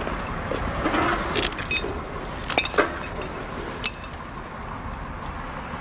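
Hard objects clinking and knocking together as concrete rubble is picked through by hand: about four sharp clinks in the first four seconds, some with a short ring.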